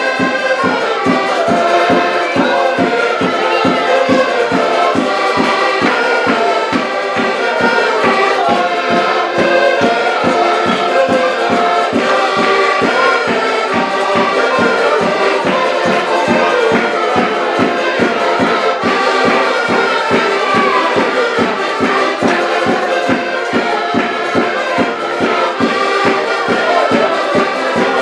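Ensemble of several button accordions playing a Portuguese folk tune together, the reeds sounding many sustained notes and chords over a steady quick beat of about four to the second.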